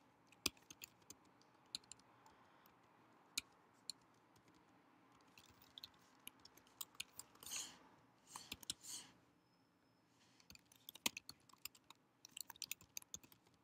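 Faint typing on a computer keyboard: scattered key clicks, a lull of a couple of seconds, then quicker runs of keystrokes. There are two brief soft rustling noises about halfway through.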